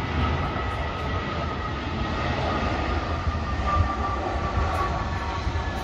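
Airbus A320's IAE V2500 jet engines at approach power as the airliner lands, a steady jet roar with a low rumble and a high whine that falls slightly in pitch.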